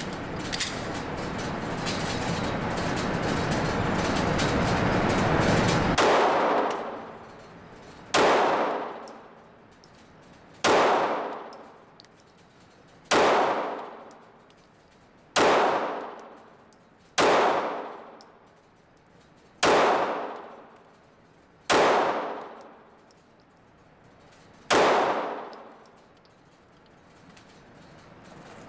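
A Glock 26 9mm subcompact pistol fired slowly: nine single shots about two to three seconds apart, each followed by a long echo that dies away in an indoor range. A steady loud rushing noise comes before the first shot, about six seconds in.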